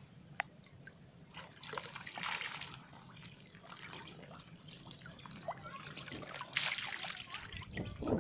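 Shallow muddy water sloshing and trickling as a bamboo fish-trap cage is lifted out of it, with water streaming and dripping off the cage. There are two louder spells of sloshing, about a second and a half in and again about six and a half seconds in, and a sharp click near the start.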